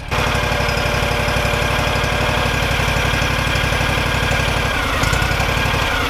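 Engine of an Exmark Vantage 48-inch stand-on mower running steadily with an even low pulsing, as its drive tire is driven over a freshly burnt tire plug to press the melted plug into the hole.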